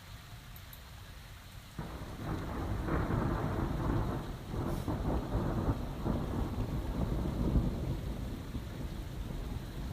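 Thunder during a rainstorm: a low rumble breaks in suddenly about two seconds in over the steady hiss of rain, rolls on loudly, and eases off near the end.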